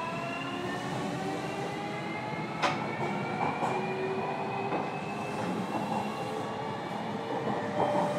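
Running noise inside a JR Kyushu 305 series electric train's motor car, its traction motor whine rising slowly in pitch as the train keeps gathering speed, over steady wheel and rail noise. A single sharp click comes about two and a half seconds in.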